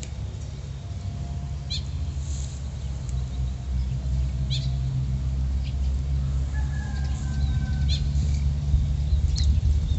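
Steady low rumble of wind on the microphone, growing a little louder towards the end, with short high bird chirps now and then and faint drawn-out calls of distant animals.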